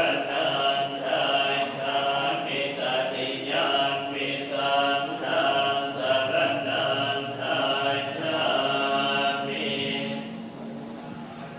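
Many voices chanting together in unison, a steady, sing-song recitation of syllables that goes on throughout and grows a little quieter near the end.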